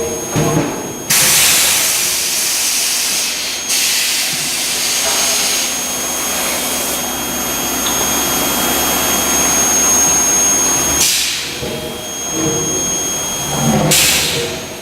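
Industrial forging machinery running: loud steady hissing with a thin high-pitched whine over it, which cut off together about eleven seconds in, followed by shorter hissing bursts.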